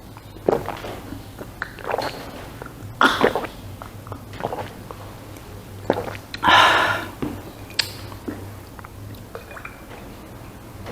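Close-up eating sounds: chewing and biting on food in irregular bursts, with one longer, louder noisy sound about six and a half seconds in, over a low steady hum.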